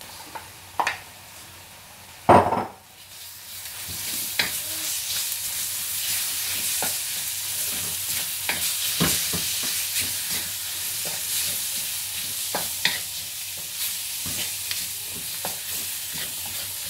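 A loud knock about two seconds in, then a sizzle that builds as diced raw chicken fries in hot oil and spice paste in a wok. A wooden spatula stirs it, with frequent short scrapes through the steady sizzle.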